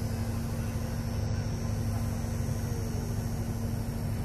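Diesel engine of a Kubota SVL97 compact track loader running steadily, a constant low hum with a steady tone, the machine standing still.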